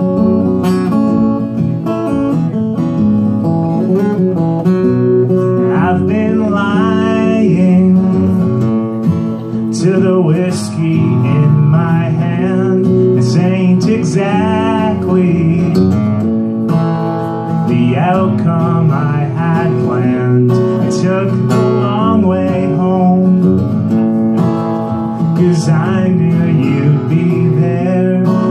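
Acoustic guitar strummed through a live PA, with a voice singing in phrases over it from about six seconds in.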